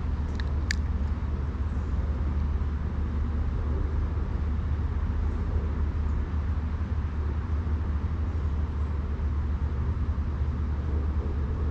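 Steady low rumble with an even hiss above it, with a short sharp click about half a second in.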